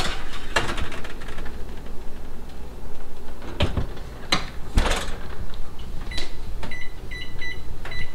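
Metal baking sheet clattering onto an oven rack with a few knocks, then the oven door pushed shut with a thump about five seconds in. Near the end, a run of short electronic keypad beeps as the microwave's timer is set.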